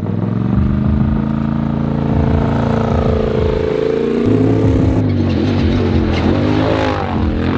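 Race RZR side-by-side's engine driving hard, its pitch climbing slowly, dropping about halfway through, then rising and falling several times with the throttle.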